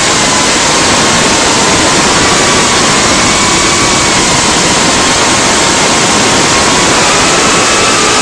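CineQueen FPV cinewhoop quadcopter's motors and propellers, heard through its onboard camera: a loud, steady rushing hiss with a faint whine that wavers in pitch and rises near the end.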